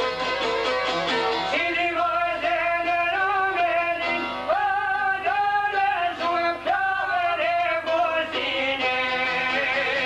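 Albanian folk song: a man singing long, ornamented phrases over çifteli and fiddle. The voice comes in about a second and a half in and stops near the end, where the instruments carry on alone.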